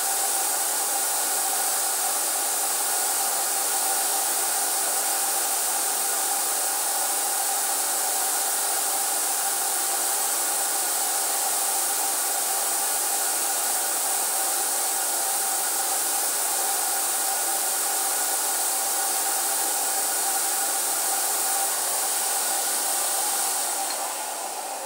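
HVLP paint sprayer running steadily while spraying, a continuous blower hiss with a steady whine in it; it eases off near the end.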